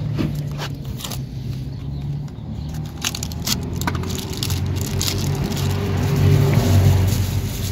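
A steady low mechanical hum that swells a little near the end, with scattered sharp clicks and scrapes of metal parts being handled.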